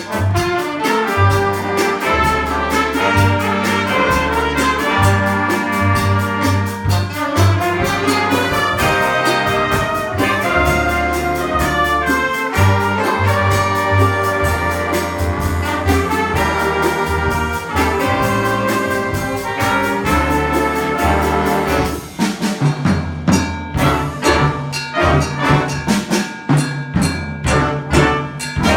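Middle school jazz band playing a Latin jazz chart, with trumpets and trombones over bass and percussion. Near the end the music thins to a sparser, more percussive passage.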